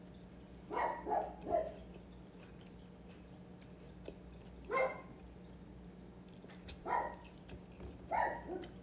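A pet dog barking in short, scattered barks: about three in quick succession a second in, single barks a few seconds apart after that, and two more close together near the end.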